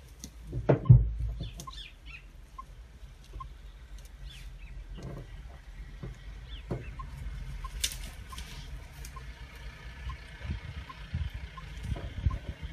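Birds calling and chirping, including one short note repeated every second or so, over a steady low rumble from an idling safari vehicle's engine. A heavy thump comes about a second in.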